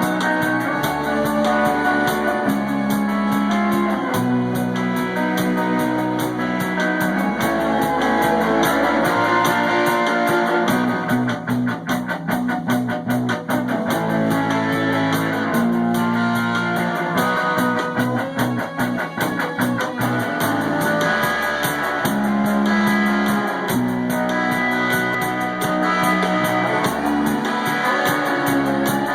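Amplified band music at a rock sound check: guitar and bass holding sustained chords that change every second or two, with two stretches of quick repeated notes in the middle.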